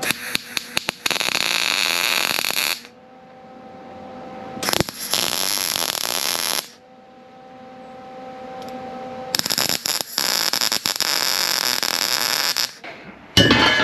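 MIG welder arc crackling as steel parts are welded, in three runs of about two to three seconds each with short pauses between them. A few short tack blips come right at the start, and a faint steady hum fills the pauses.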